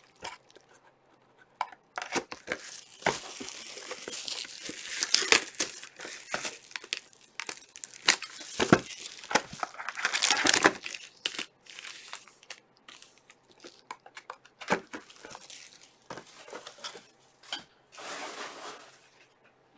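Plastic shrink-wrap being torn and crinkled off trading-card boxes, in irregular bursts, with sharp clicks and knocks as the boxes and packs are handled and set down.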